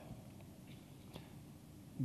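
Near silence: faint room tone, with one faint click a little over a second in.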